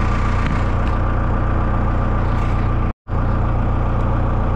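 Case 686G telehandler's diesel engine idling steadily, broken by a split-second silence about three seconds in.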